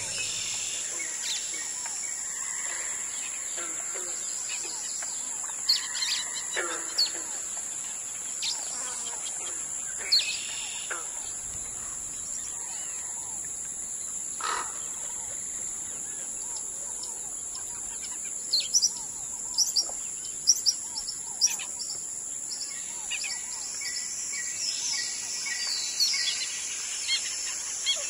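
Wild birds calling from the riverside bush, short chirps and whistles scattered throughout and coming thickest in a cluster past the middle, over a steady high-pitched hiss.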